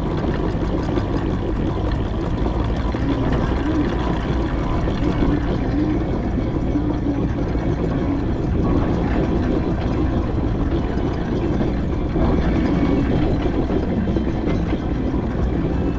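Steady low rumble of a running vehicle, heard from aboard a 4-inch scale McLaren traction engine on the move.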